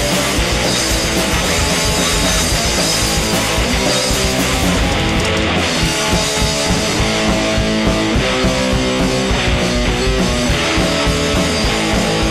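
Punk rock band playing: electric guitar, bass guitar and drum kit, loud and steady.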